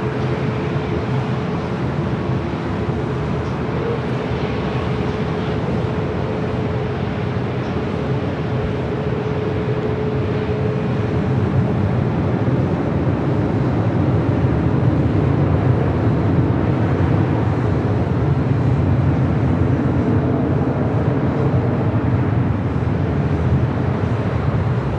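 Airbus A380's four jet engines at takeoff thrust during the takeoff roll and climb-out: a steady, loud rushing noise with a faint steady hum, growing a little louder about halfway through.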